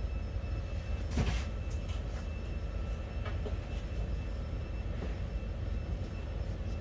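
Steady low background rumble with a faint constant whine, broken by a few light knocks and clinks, the clearest about a second in and smaller ones around two and three seconds.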